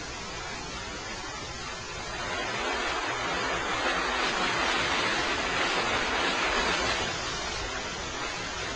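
Steady hiss of background noise that swells a little in the middle and eases off near the end.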